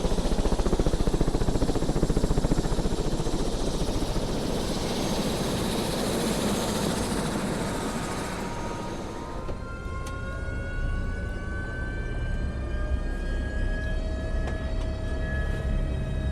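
Helicopter running at close range, its rotors and engine making a loud, dense rushing noise. About nine seconds in the sound changes abruptly to a steadier low drone with a whine that rises slowly in pitch.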